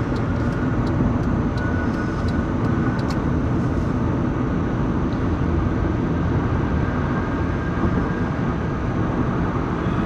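Steady road and engine noise heard inside a moving car's cabin, with a few faint light ticks in the first few seconds.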